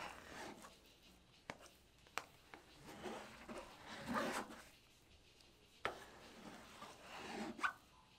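Close-up kitchen handling sounds from dough preparation: soft rubbing and scraping strokes, with four sharp clicks or taps spread through.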